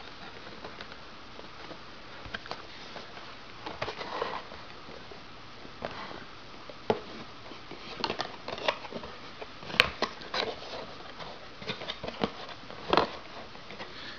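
Cardboard packaging of a camera box handled and opened by hand: scattered rustles, scrapes and light taps of the paperboard flaps and insert, busier in the second half, with one sharp click about ten seconds in.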